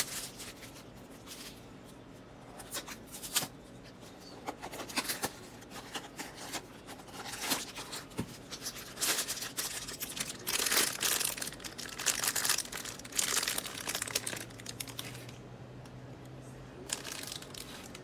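Plastic shrink-wrap and a foil blind bag crinkling and tearing as they are pulled open by hand, in irregular bursts that are busiest a little past the middle and die down near the end.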